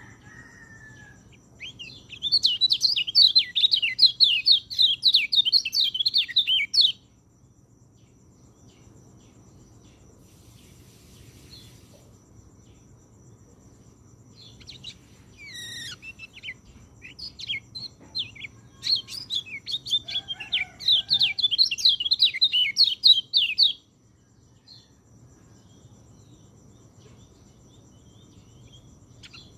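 White-eye (pleci) singing: two long bursts of rapid, high twittering, each about five seconds long, with scattered single chirps in the gaps between them.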